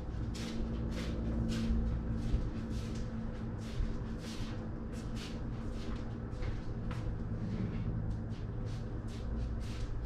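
Steady low hum of city background, with many short, faint hissing ticks scattered irregularly over it.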